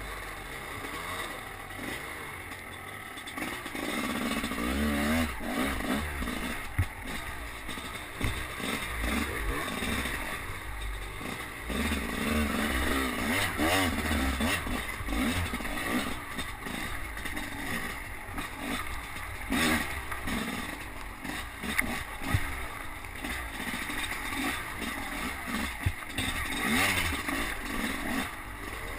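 Enduro dirt bike engine revving up and down as it is ridden over rough, muddy forest ground, heard from a helmet-mounted camera. A few sharp knocks and some clatter come from the bike hitting roots and ruts.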